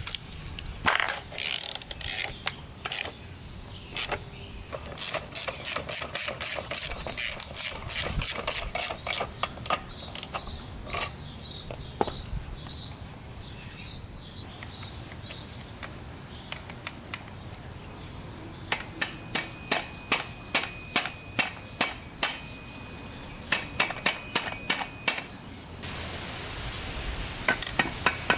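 Ratchet wrench clicking in quick runs as it turns the screw of a motorcycle engine case splitter to push the crankcase halves apart. The clicks come about four or five a second in two main runs, the later one with a metallic ring.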